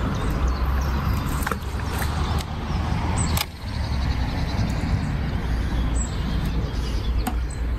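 Steady low rumble of outdoor ambience, dipping briefly about three and a half seconds in, with a few faint bird chirps over it.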